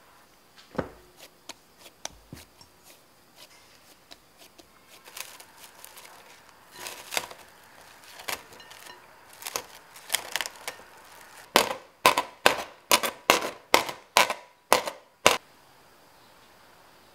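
Plastic cling film crackling as it is stretched over a glass mixing bowl, then about ten sharp pops in quick succession as holes are poked through the taut wrap; a single knock about a second in.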